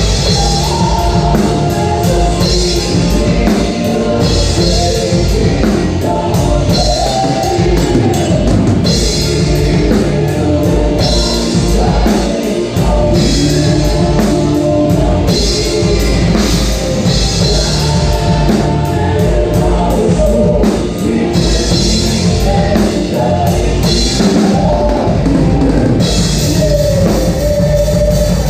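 Loud rock music with a full drum kit, distorted guitars and a singing voice.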